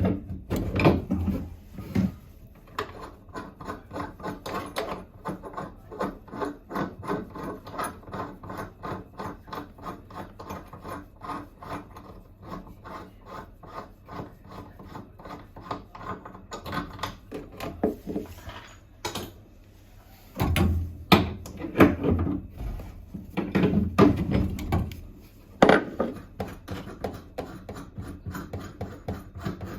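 Rapid, even rasping strokes of a hand tool scraping or filing, about three a second, with a few louder, heavier strokes about two-thirds of the way in.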